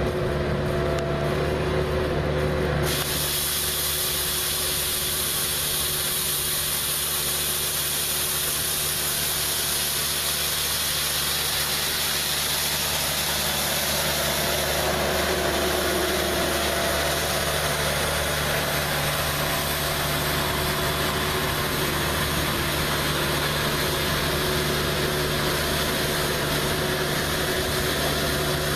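Skid steer engine running steadily as its rotating broom attachment sweeps, with a steady hiss of bristles coming in about three seconds in.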